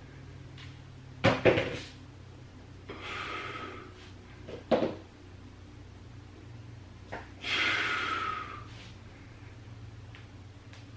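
A man breathing out hard twice during band exercise repetitions, about three and eight seconds in, with a few short knocks in between.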